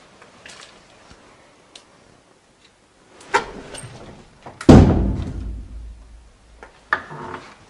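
A door being opened: a latch clicks about three seconds in, and a second later the door bangs loudly, ringing on with a long dying echo. Another knock follows near the end.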